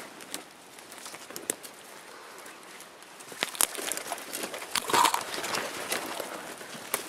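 Footsteps through dry forest underbrush, with twigs snapping and crackling and branches brushing past. The sound comes as irregular snaps and scuffs, busiest and loudest around five seconds in.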